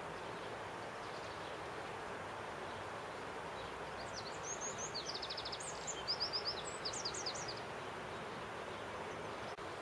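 A small songbird sings a quick phrase of high chirps, a short trill and falling notes for about three seconds midway, over a steady rushing background hiss. A brief click comes near the end.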